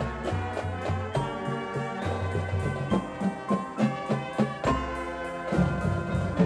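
Marching band playing: brass chords over a steady percussion beat.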